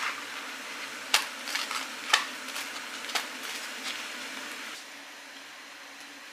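Toasted bread being broken apart by hand over a ceramic plate: a dry crackle of crust, with three sharp cracks about a second apart, dying away near the end.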